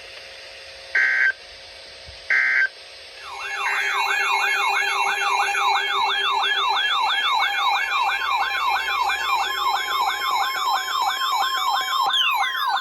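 Two short bursts of Emergency Alert System data tones, the end-of-message code, then a loud electronic siren tone warbling up and down about three times a second, settling into falling glides near the end.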